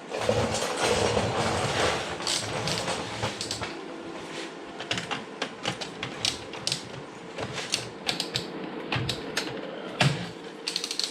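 Irregular clicks, knocks and light clatter of hard objects being handled, with a brief rustling hiss in the first couple of seconds.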